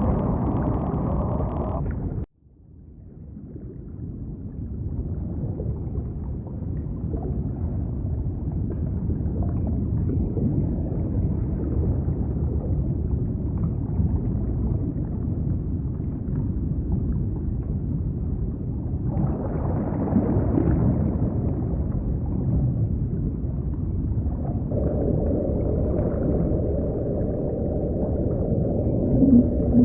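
Processed underwater ocean soundscape: a deep, low rumble that cuts off abruptly about two seconds in, then fades slowly back up. Later, higher layers join, and a short low falling tone comes near the end.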